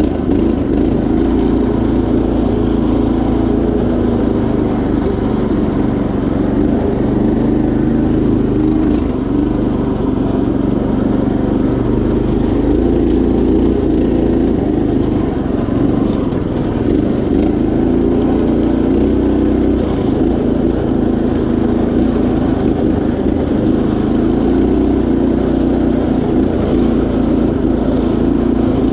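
Predator 212 single-cylinder engine on a riding mower running steadily under load as the mower drives along a trail, its pitch wavering a little with the throttle.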